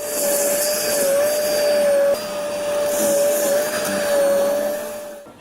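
A machine running with a steady whine over a loud rushing hiss, the whine wavering slightly in pitch. The sound shifts abruptly about two seconds in and fades out near the end.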